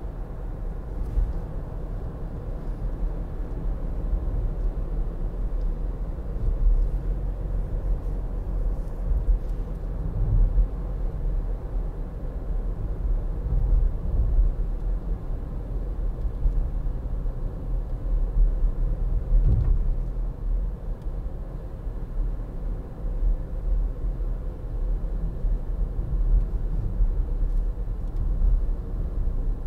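Cabin noise of a 2012 Volkswagen up! on the move, heard from inside: its 1.0-litre three-cylinder engine running under light load with a steady low road and tyre rumble.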